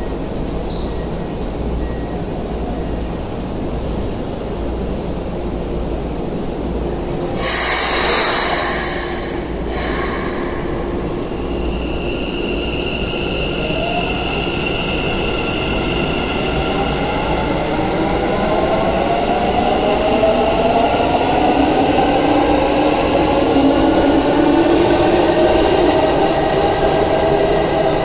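Keikyu N1000 series metro train departing. About eight seconds in there is a loud burst of compressed-air hiss. The train then pulls away, its VVVF inverter traction motors whining in several tones that rise steadily in pitch and grow louder as it accelerates.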